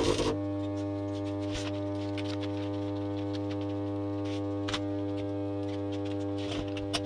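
An AC stick-welding arc crackling briefly, stopping about a third of a second in; after that the cheap buzz-box arc welder's transformer hums steadily with no arc struck, with a few faint ticks.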